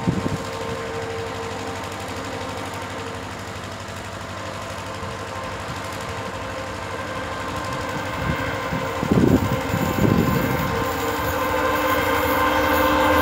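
Diesel locomotive hauling a passenger express approaching on the line, its running sound growing steadily louder over the last few seconds. Two brief low rumbles come about nine and ten seconds in.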